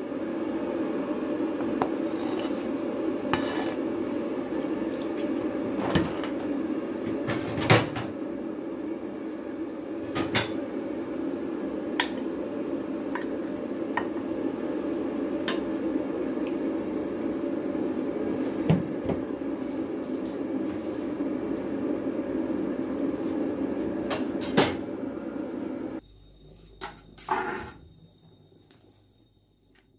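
Broth boiling steadily in an ECG MH 158 electric multifunction pot, with scattered clinks and knocks of utensils and ingredients against the pot. The boiling sound cuts off suddenly near the end, and a few taps of chopsticks on the pot follow.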